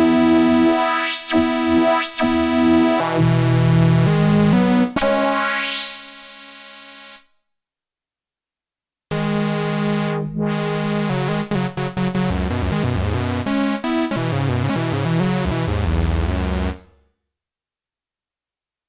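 DIY analogue synthesizer (Ad-vantage 03M) playing a run of buzzy notes, with a rising filter sweep before it cuts off about seven seconds in. After a two-second gap it plays another run of notes and stops near the end.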